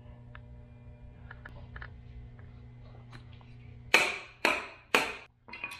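Wooden dowel rod handle rapped three times on a concrete floor, sharp knocks about half a second apart, followed by a couple of lighter taps: it is seating the bamboo rod glued into the handle's hole. A steady low hum runs underneath.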